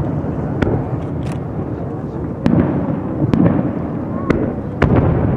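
Aerial fireworks shells bursting: several sharp bangs, roughly one a second, over a continuous low rumble of the display.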